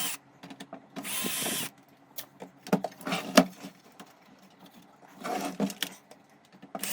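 A small cordless drill-driver whines in a short burst of under a second about a second in, and starts again right at the end. In between come scattered clicks and knocks of handling.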